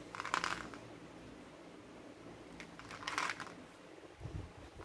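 Products being handled and moved about: two brief rustles and a couple of soft low knocks near the end.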